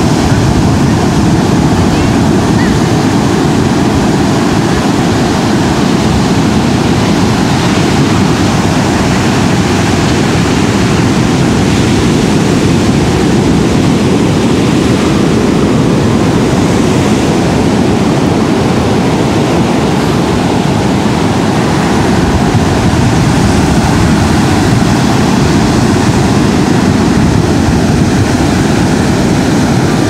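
Large ocean surf breaking on a sand beach: a loud, steady rush of waves, with a deep rumble of wind on the microphone.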